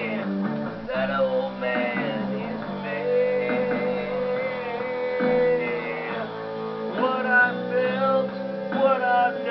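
Guitar music, plucked and strummed, with long held notes and some bent notes.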